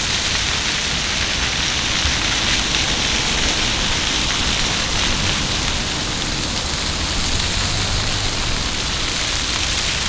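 Water from a public fountain spraying and splashing down steadily.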